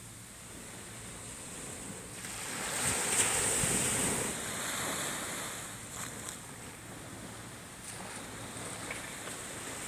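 Small waves lapping and washing up a sandy beach from a calm sea. The wash swells about three seconds in and fades away a few seconds later.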